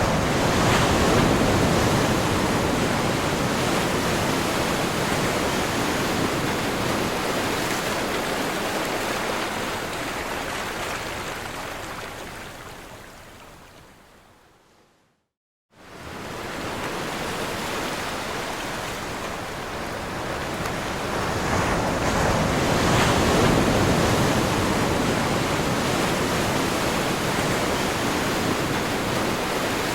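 Ocean surf: waves breaking and washing in a dense, steady hiss that swells about a second in. Around halfway it fades out to silence, then cuts back in abruptly and swells again later.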